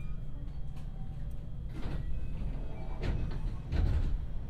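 JR West 223-series train's sliding doors closing: short rushes of air and a heavy thud about four seconds in, over the carriage's steady low rumble.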